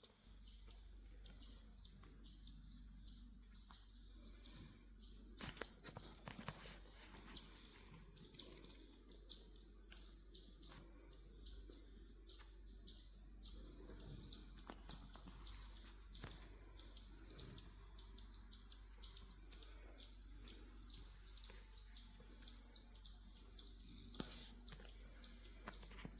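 Faint, steady high-pitched insect chorus, with scattered small clicks and ticks, one louder about five seconds in.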